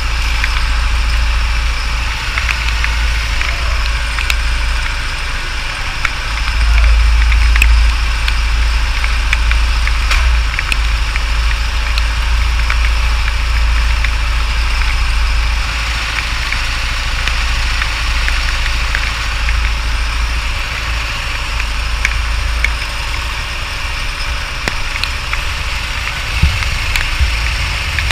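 Go-kart engine idling with a steady low rumble, getting louder for a moment about seven seconds in.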